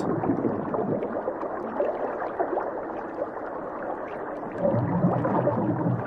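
Muffled underwater bubbling and gurgling, typical of scuba divers' exhaled air, with a louder rush of bubbles about five seconds in.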